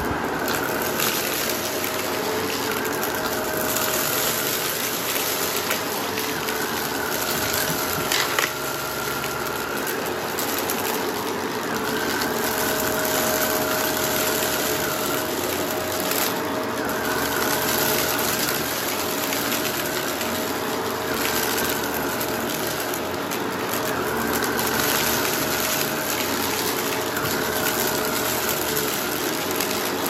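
Vacuum cleaner running with its brushroll on a rug: a steady motor noise whose whine changes every few seconds as it is pushed and pulled, with one sharp click about eight seconds in.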